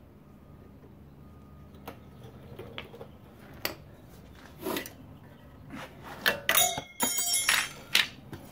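Metal tools and brake caliper parts clinking and knocking: scattered light clicks, then a burst of metallic rattling and ringing clatter from about six to eight seconds in.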